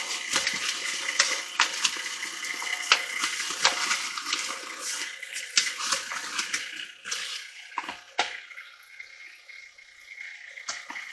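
Stand mixer running with its dough hook in bread dough while flour is poured in from a paper bag; the bag crinkles and rustles with sharp crackles throughout. The rustling and crackling thin out after about seven seconds, leaving a few clicks.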